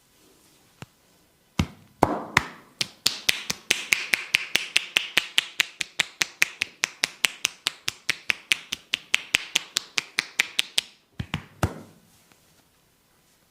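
Sharp, rapid percussive strikes of a barber's hands in an Indian head massage. A few uneven strikes lead into a steady rhythm of about five a second, which stops suddenly, followed by two last strikes.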